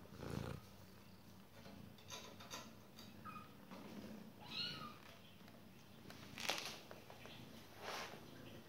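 A kitten gives one short, high mew about halfway through, among a few sudden knocks and scrapes of kittens clambering on a wooden crate; the loudest knock comes about two-thirds of the way in.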